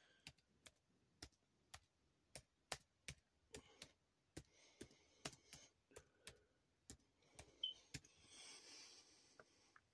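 Irregular single clicks, roughly two a second, from someone working a computer, with a soft brief rustle near the end.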